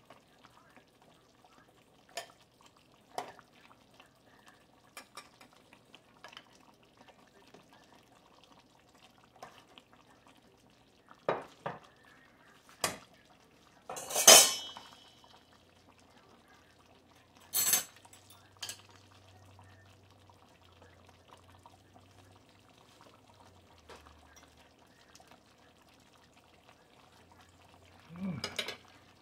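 Scattered clinks and knocks of kitchenware: a ladle, bowl and pot being handled, with one louder clatter about halfway through. Near the end a fork and spoon clink against a plate.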